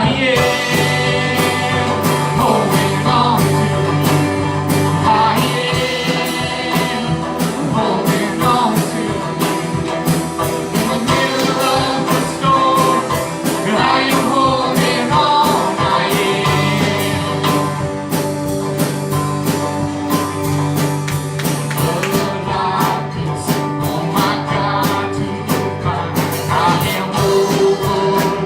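Church worship band playing an upbeat song, with a singer, guitar and a steady beat.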